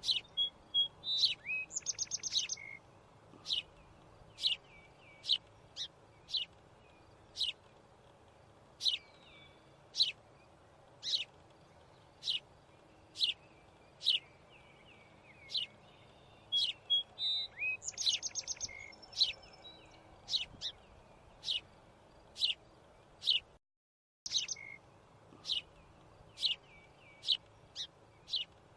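Small bird chirping: short sharp chirps about once a second, with a quick run of rapid chirps near the start and again about two-thirds of the way through. The sound drops out completely for under a second near the end.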